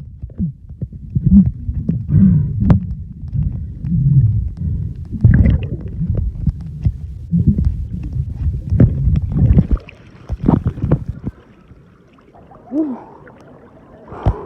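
Muffled, irregular low rumbles and thuds of water moving around a phone recording underwater while swimming. The sound drops away to a quieter stretch about three quarters of the way through.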